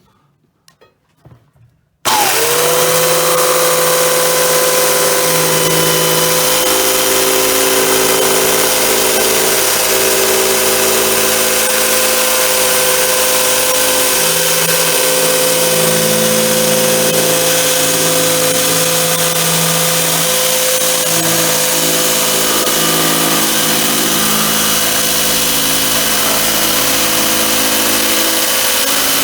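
Electric jigsaw cutting into a plastic 25-litre barrel: it starts abruptly about two seconds in and runs with a steady motor whine.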